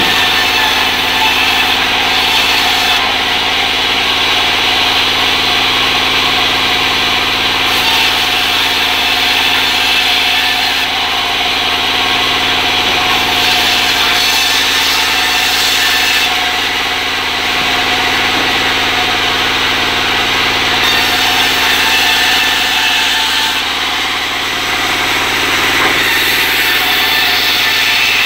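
A circular sawing machine running steadily while it rips sengon wood into rafters. The high hiss of the cut strengthens and fades every few seconds over a constant machine hum.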